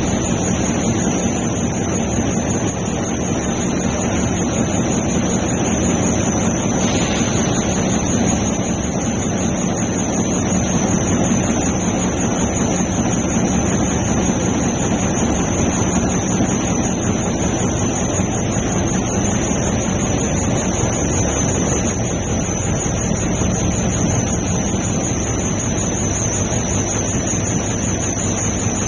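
Diaper production line machinery running at speed: a steady mechanical roar with a constant high-pitched whine over it.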